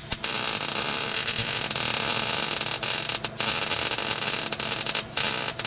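Electric welding arc crackling steadily while a bead is run around an exhaust pipe joint to seal an exhaust leak, with two short breaks where the arc stops and restarts.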